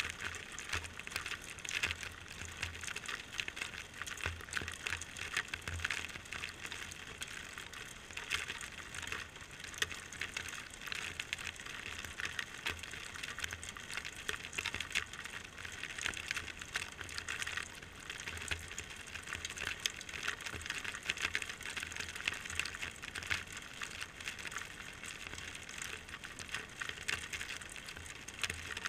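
Steady rain patter, thick with close, crackly drop ticks, and rainwater trickling out of a metal gutter downspout onto concrete.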